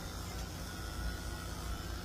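Electric dog-grooming clippers fitted with a #30 blade running with a steady buzz while shaving the pads of a dog's foot.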